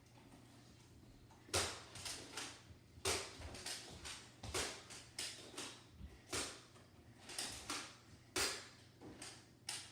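A run of irregular sharp clacks and knocks, about fifteen in eight seconds, starting about a second and a half in: Nerf foam-dart blasters firing, with darts striking.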